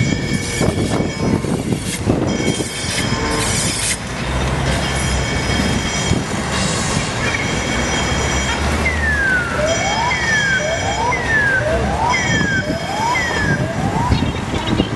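Soundtrack of a building projection show: tonal music and sound effects, then about nine seconds in a run of about five quick siren-like wails, each a falling tone over a rising one.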